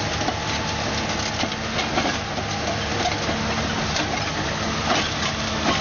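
A heavy machine's diesel engine running under load, with frequent irregular cracking and crunching of material being broken or crushed.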